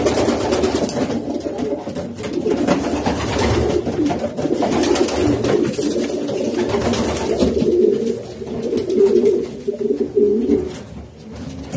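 Racing pigeons cooing, many birds at once with their calls overlapping continuously.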